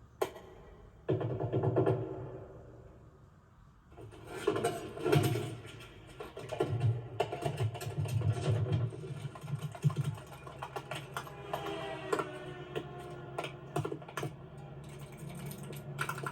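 Film score music with scattered light clicking and tapping sound effects.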